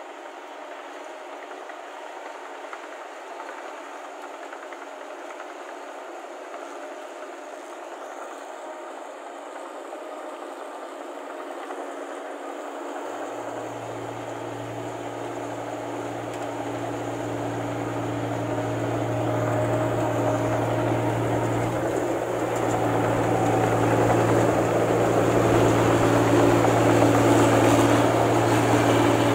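New Holland crawler combine harvester running as it harvests rice: a steady mechanical clatter and whirr of engine and threshing machinery. A low engine hum comes in about halfway through, and the sound grows steadily louder as the machine comes close.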